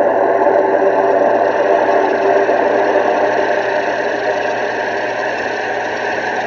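Loud, steady, distorted droning soundtrack: a rough noisy rumble with several held tones under it, unchanging, that cuts off abruptly at the end.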